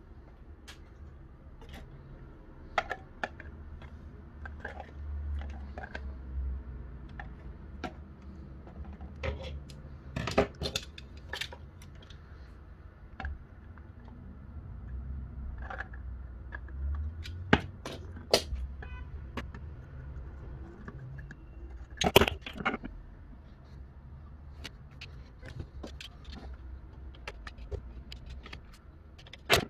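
Thin plastic bottle and its screw cap handled and fitted together: scattered clicks, taps and crinkles of hard plastic, loudest in a quick cluster about two-thirds of the way through, over a low steady hum.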